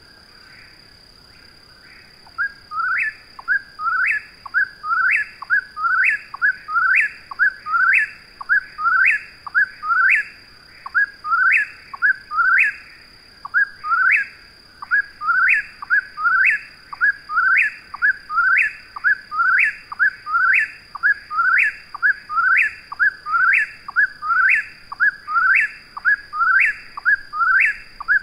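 Eastern whip-poor-will singing its whistled "whip-poor-will" phrase over and over, about once a second. The song is faint at first and becomes loud and close about two seconds in.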